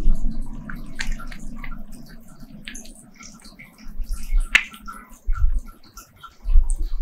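A cat chewing raw beef and chicken breast: a quick run of wet smacking clicks, with a few low thumps from about four seconds in.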